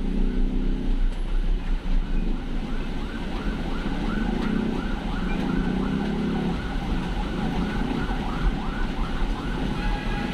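A siren yelping in quick rising-and-falling wails, about three a second, over engine rumble and road noise in traffic.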